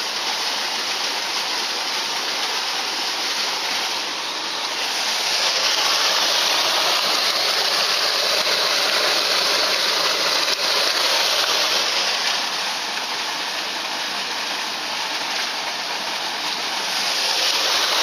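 A small mountain stream rushing and splashing over rocks just below the microphone: a steady, full water noise that swells slightly in the middle and again near the end.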